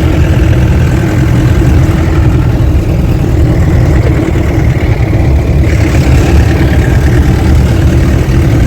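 Off-road jeep driving along, its engine running with a loud, steady low rumble together with road noise from a bumpy dirt track.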